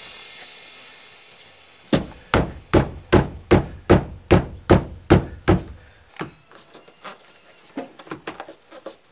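A quick run of about ten firm knocks, nearly three a second, then a few lighter, scattered taps.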